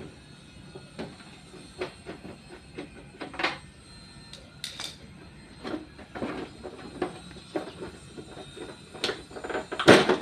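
Irregular clicks, knocks and scraping of parts being handled as an air cooler is worked on for repair, with a louder clatter near the end.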